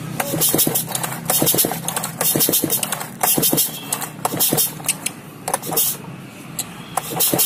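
Stihl 070 two-stroke chainsaw being pull-started: about seven hard yanks on the recoil starter rope roughly a second apart, each a short whir of the rope with the engine turning over against compression, without catching into a steady run. The engine is freshly rebuilt and being test-started, and the pull is heavy because the parts are new.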